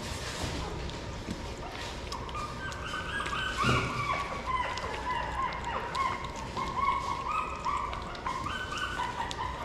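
Shih Tzu puppies whimpering: many short, high-pitched squeaks that overlap, starting about two seconds in. One sharp knock sounds a little after that.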